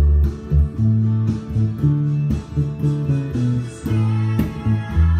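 Electric bass guitar, a Fender Precision, playing a melodic line of held low notes in the key of A, along with a country band recording with acoustic guitar.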